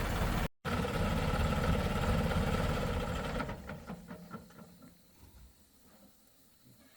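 Heavy diesel engine running steadily. It breaks off for an instant about half a second in, then dies away about three and a half seconds in, leaving a few faint clicks.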